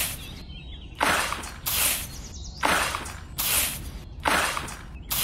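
Rhythmic scraping strokes, about five of them, each starting sharply and fading within half a second, spaced a little under a second apart.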